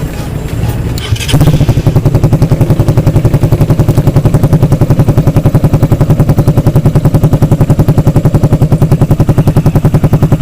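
Suzuki Raider 150's single-cylinder four-stroke engine running through an aftermarket Akrapovic muffler with its silencer insert and cover fitted. It gets suddenly louder a little over a second in, then holds a steady, rapid exhaust beat.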